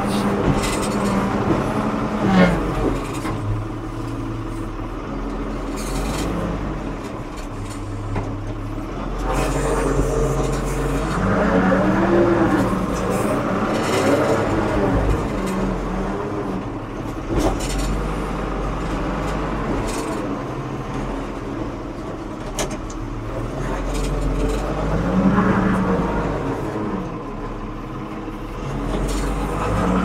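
Ford 550 backhoe's diesel engine running, its pitch rising and falling several times as the machine works, with scattered knocks.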